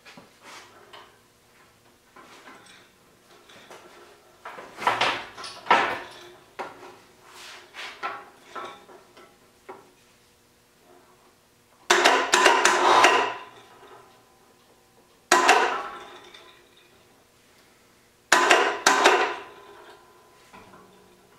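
Metal-on-metal clanking and scraping as the heavy tool turret of a Tormach CNC lathe is worked into place on its mounting screws and slots. It comes in several separate bursts of clatter with a faint ringing, the loudest and longest about twelve seconds in.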